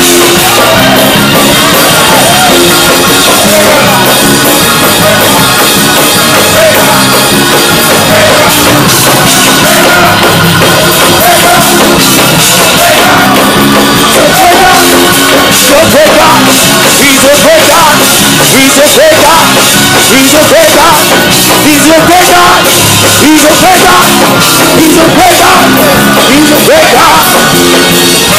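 Loud, rhythmic live gospel praise music from a church band, with voices singing over it.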